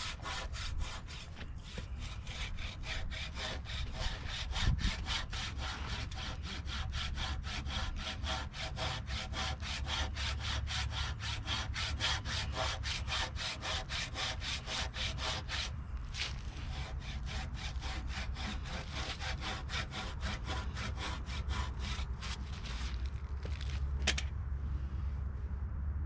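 Surform-style rasp plane (a plane with a grater-like face instead of a blade) scraping across a wooden bench top in quick, even back-and-forth strokes, shaving it flat. The strokes break off briefly about 16 seconds in, come back fainter, and stop after a sharp knock near the end, over a steady low rumble.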